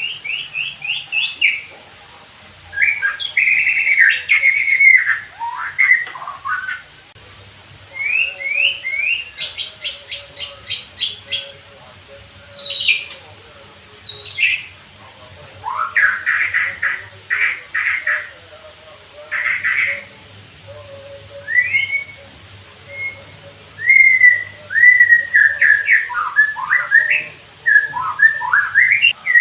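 White-rumped shama (murai batu) singing: loud, varied phrases of clear whistles and glides mixed with fast runs of short, sharp repeated notes, with brief pauses between phrases.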